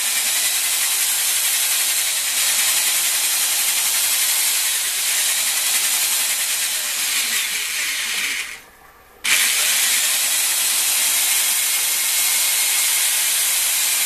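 Lapping paste grating between a ZiF-77 piston and its cylinder as the piston is worked back and forth to lap it in: a steady gritty hiss. It cuts out briefly about two-thirds of the way through.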